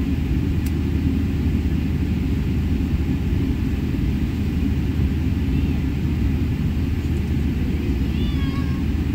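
Steady low rumble inside the cabin of a Boeing 777-300ER taxiing after landing. A faint click comes shortly after the start, and a few brief, faint high-pitched cries come past the middle and near the end.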